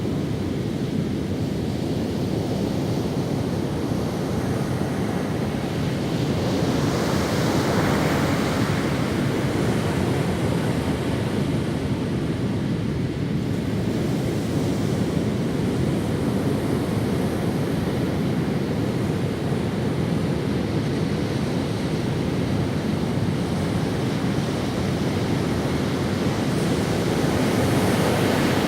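Ocean waves breaking and washing up on a sandy beach: a continuous surf rush that swells twice, once about a quarter of the way in and again near the end.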